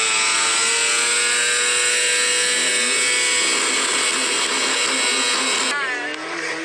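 1977 Kawasaki KZ650's inline-four engine running hard on a ride, a high, steady engine note whose pitch shifts suddenly near the end.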